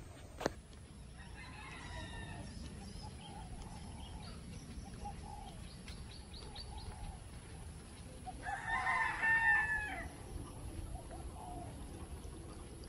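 A rooster crowing: one loud, drawn-out crow a little past the middle, with fainter calls earlier. A brief click comes just after the start.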